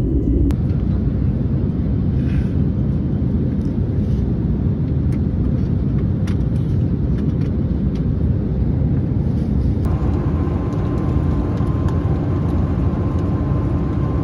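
Steady rumble of an Airbus A321neo airliner's cabin in flight: engine and airflow noise heard from a window seat, with a faint steady hum from about ten seconds in.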